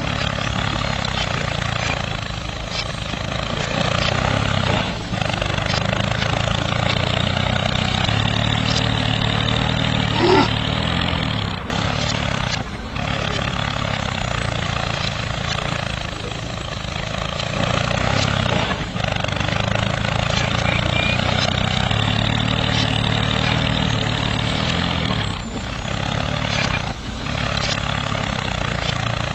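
Miniature DIY tractor running as it pulls a tine cultivator through sand: a steady low engine-like drone, broken by short dips a few times.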